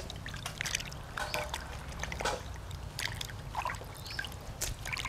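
Water splashing and dripping in a metal basin as hands wash a whole fish and pull out its innards: small irregular splashes with drips running off the hands.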